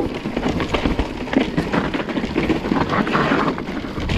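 Mountain bike ridden fast over a dirt trail with jumps and drops: tyres on dirt and a dense, irregular rattle and knocking of the bike over rough ground, over a low rumble.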